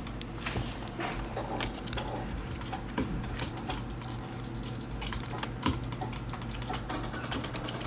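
Fingers poking, squeezing and stretching green glue-based slime in a plastic tub. It makes a quick, irregular run of small sticky clicks and pops, with a sharper pop about three and a half seconds in. A steady low hum runs underneath.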